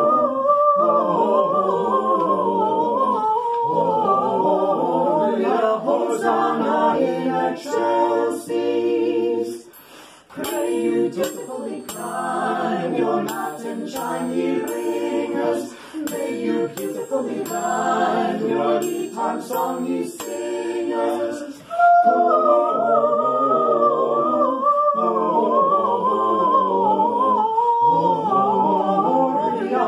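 Mixed five-voice vocal ensemble (soprano, two altos, tenor, bass) singing a Christmas carol a cappella. Through the middle third a hand-held triangle is struck repeatedly in rhythm with the song, ringing over the voices.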